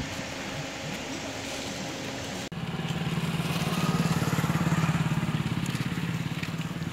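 A vehicle engine running nearby with a fast, even pulsing hum. It starts abruptly about two and a half seconds in, is loudest around the middle, then eases a little. Before it there is a quieter steady background hum.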